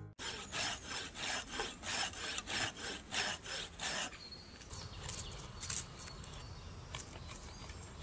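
Hand tool scraping the inside of a hollowed log, in rhythmic rasping strokes about three a second. After about four seconds it stops, leaving only faint scattered ticks.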